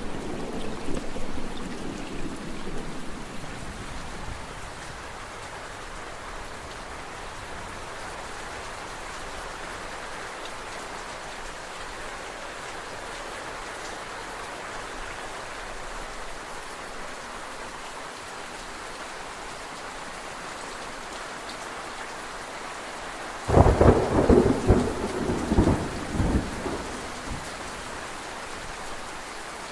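Steady rain falling, with thunder rumbling away over the first few seconds. Near the end a loud, sudden thunderclap breaks in and crackles for about three seconds before the rain carries on alone.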